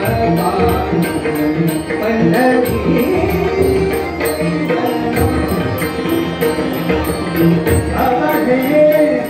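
A male voice singing a Marathi abhang (devotional song) live, accompanied by tabla and harmonium, with a steady rhythmic drum pulse.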